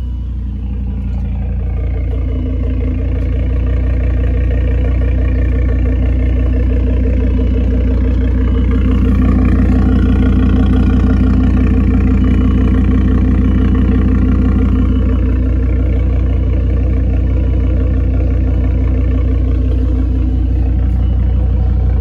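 Volvo T5 turbocharged engine idling just after being started with newly fitted fuel injectors, meant to cure a misfire. It runs steadily, with the engine speed and loudness rising a little about a third of the way in and easing back a few seconds later.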